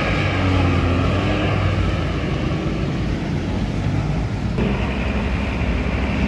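Off-road vehicle engines running steadily, a low hum with noisy mechanical sound over it; the sound changes abruptly about four and a half seconds in.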